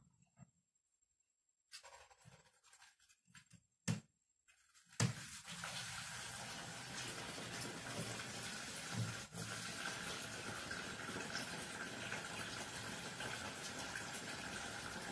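Water pouring steadily through the small holes of a cut plastic bottle onto a cloth over aquarium substrate, the tank being filled slowly so the substrate is not stirred up. It starts about five seconds in, after a few light handling knocks.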